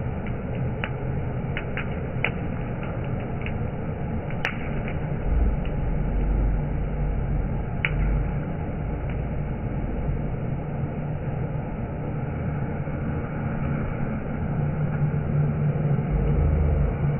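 Hair dryer blowing air into burning coal: a steady rush of air with a low rumble that swells now and then, and sharp crackles from the fire scattered through the first half, the loudest about four and a half seconds in.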